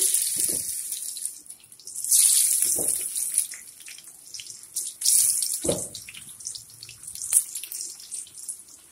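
Breadfruit chips dropped by hand into hot frying oil, the oil sizzling up each time a handful goes in: at the start, about two seconds in and about five seconds in. Between drops it settles to a crackling fizz.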